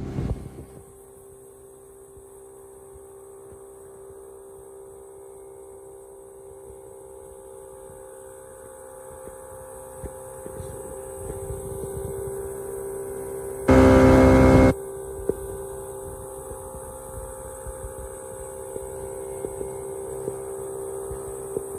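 Small two-stroke outboard motor running at a steady throttle, a droning hum that slowly grows louder. About two-thirds of the way through, a sudden loud burst lasts about a second.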